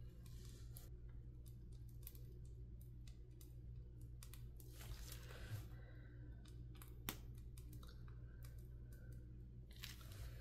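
Faint crinkling and scattered soft clicks of a plastic piping bag being squeezed to pipe lightweight spackling, over a steady low hum.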